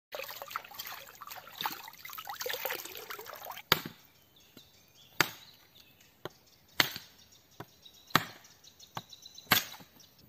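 An axe chopping into a wooden branch: five sharp strikes about one and a half seconds apart, with a few lighter knocks between them. The strikes come after a few seconds of busier, mixed sound.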